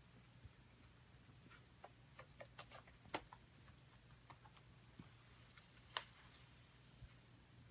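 Faint, scattered small clicks and crackles, the sharpest about three seconds in and again at six seconds, from a cat rubbing and chewing at the sisal base of an arch self-groomer scratcher, under a low steady room hum.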